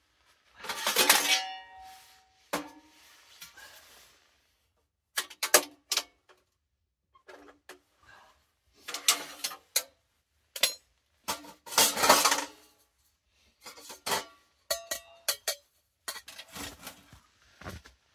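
Metal parts of a Pomoly Dweller folding wood stove clanking and clinking as it is assembled: a series of sharp metallic knocks, a few ringing briefly, with short pauses between them.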